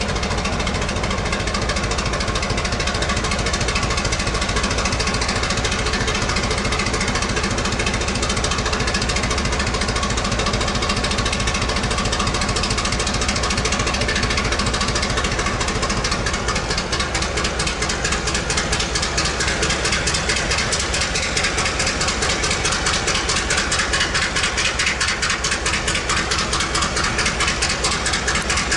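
EMD G12 diesel-electric locomotive's two-stroke V12 567 engine idling loudly with a fast, uneven, Harley-Davidson-like beat. The beat grows more pronounced about halfway through.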